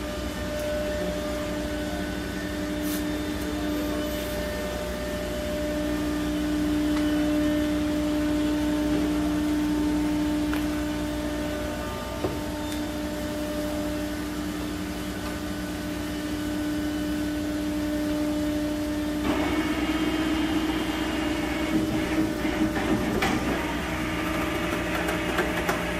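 Veneer press machine running with a steady machine hum and a constant whine. About three-quarters through it turns rougher, with rattling and scattered clicks over the hum.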